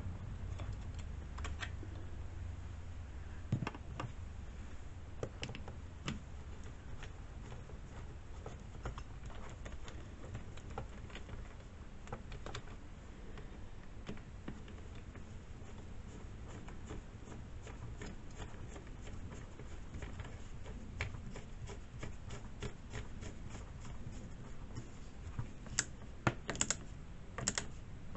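Scattered light clicks and taps of small chainsaw parts being handled and fitted back together by hand, with a run of louder clicks near the end.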